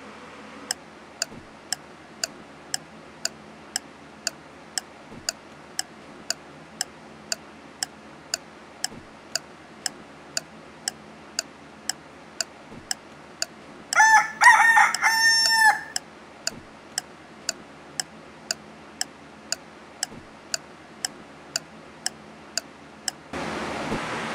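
A clock ticking steadily about twice a second, with a rooster crowing once, cock-a-doodle-doo, about two-thirds of the way through as the loudest sound. Near the end the ticking stops and a steady hiss of room noise takes over.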